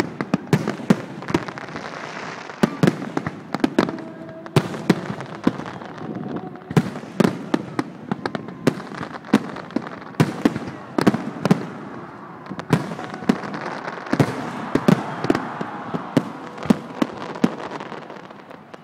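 Aerial fireworks going off in a dense display: an irregular series of sharp, loud bangs, often several a second, over a continuous crackle and rumble, thinning out near the end.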